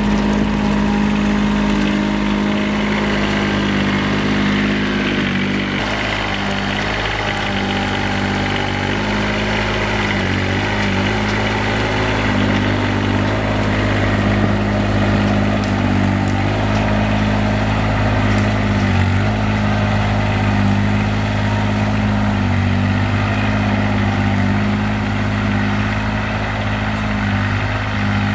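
Engine of a Kranman Bison 8000 six-wheel-drive mini forwarder running steadily as the machine drives, its pitch dipping and shifting briefly a few times.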